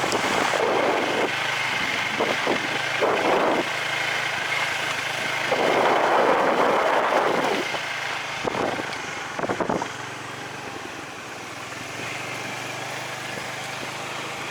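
A small engine running steadily, with several louder rushes of noise over it in the first ten seconds.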